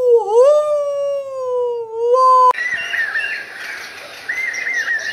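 A long canine howl that dips and rises again in pitch, then holds, and cuts off abruptly about two and a half seconds in. Short phrases of bird chirps over a steady hiss follow.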